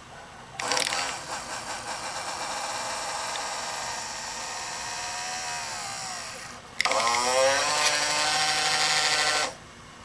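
Small electric motor of a Toyota Celica's OEM HID headlight leveling actuator whining as it drives the headlamp to a new setting, twice: a six-second run whose pitch drops as it stops, then, about seven seconds in, a shorter run that starts with a rising whine and cuts off near the end. The motor is working, powered on the bench from a 12-volt line.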